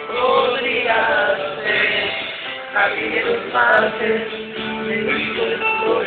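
Live concert music: a man singing a slow song into a microphone with instrumental accompaniment, in phrases that rise and fall. The sound is dull and muffled, with no treble.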